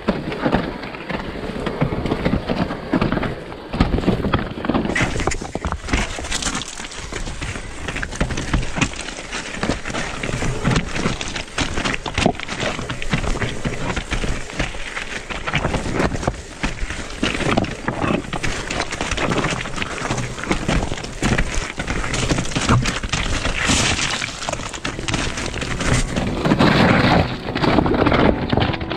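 Mountain bike rattling down a rocky trail: a dense, irregular run of knocks and rattles from the frame, chain and tyres striking stones, over a constant rushing noise.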